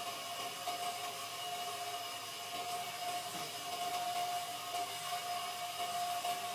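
A small electric power tool's motor running steadily, a constant whine over a hiss, with no strokes or pauses.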